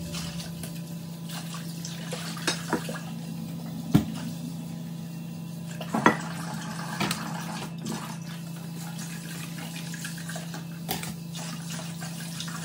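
Kitchen work while potatoes are peeled with a hand peeler at the sink: light handling noise and several sharp knocks of potatoes and utensils against the pan, the loudest about four and six seconds in, over a steady low hum.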